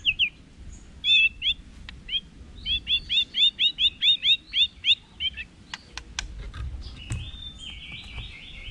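White-rumped shama singing: sharp whistled notes building into a fast run of about a dozen quickly repeated notes, then a few sharp clicks and a scratchy, buzzy phrase near the end.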